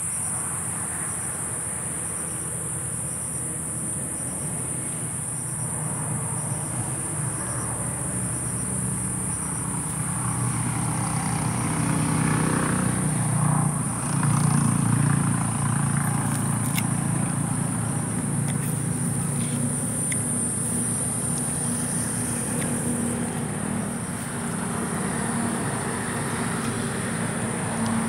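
Steady high-pitched drone of insects such as crickets or cicadas, over a low rumble that grows louder around the middle and then eases.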